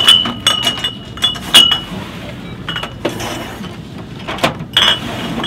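Glass beer bottles clinking against each other and the shelf as they are handled and slid forward, a run of sharp, ringing clinks.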